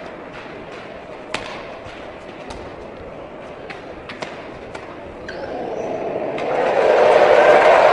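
Badminton rally: a series of sharp racket-on-shuttlecock hits about half a second to a second apart over arena background noise, then from about five and a half seconds in the crowd's noise swells into loud cheering at the end of the point.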